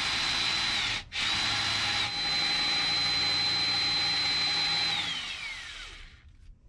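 Power drill boring into a Mazda Miata's oil pan with a full-size bit, the hole not yet broken through. The motor runs at a steady speed with a brief stop about a second in, then the trigger is released near the end and the whine falls as it spins down.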